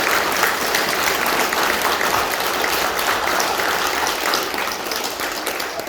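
An audience of schoolchildren and adults applauding, a dense steady clapping that starts to thin out near the end.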